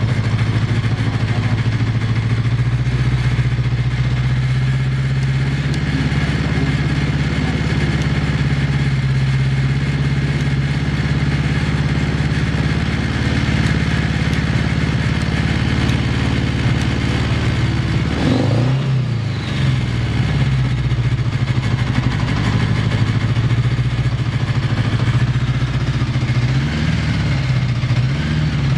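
Honda GL1100 Gold Wing's liquid-cooled flat-four engine idling steadily, with a couple of brief throttle blips about two-thirds of the way through and again near the end. The idle is stable, with no abnormal noise, typical of an engine in sound running order.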